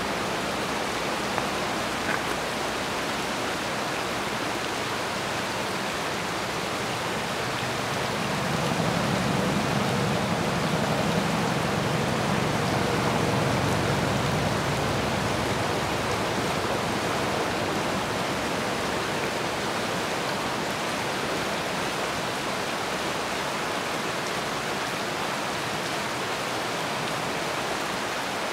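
Shallow, rocky creek flowing over stones, a steady rush of water that grows a little louder for several seconds in the middle.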